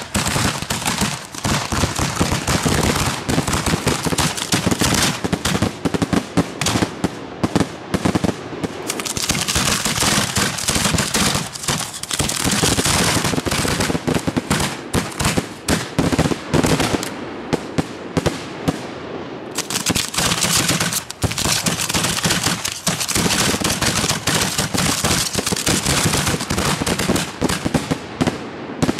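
Professional display fireworks firing close by: a rapid, unbroken barrage of aerial shells launching from their mortars and bursting overhead, with crackling throughout.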